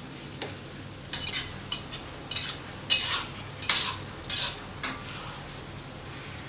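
Metal spatula scraping and tossing vegetables in a wok during a stir-fry: a run of about eight quick scrapes between one and five seconds in, over the steady sizzle of the frying food.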